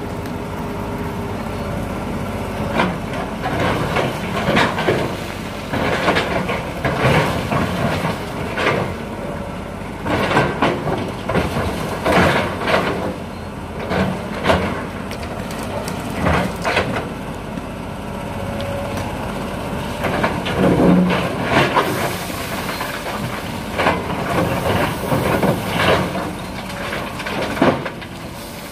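Komatsu PC200 hydraulic excavator's diesel engine running steadily, with repeated clattering and scraping of rocks and gravel as its bucket digs into a face of black sand and stones.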